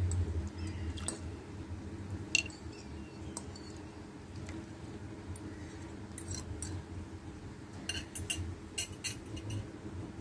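Quiet kitchen background: a steady low hum with a few light clicks and taps scattered through it, more of them in the second half.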